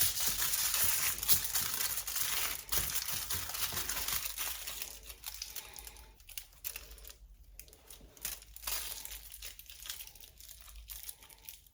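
Aluminium foil crinkling and crackling as it is wrapped tightly around a roll of raw chicken sausage mixture. The handling is busiest in the first half and turns faint and sparse after.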